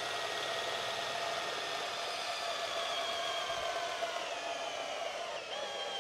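Flex 24V cordless hammer drill in drill mode boring a long spiral bit into a log: a steady motor whine that slowly drops in pitch as the drill bogs down under the growing load.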